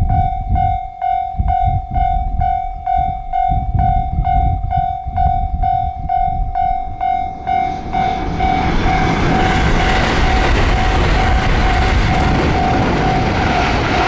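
Japanese level-crossing warning bell ringing in a steady beat, about two strikes a second. About halfway through, a long electric limited express passes close by, and its running noise rises and covers all but the bell's tone.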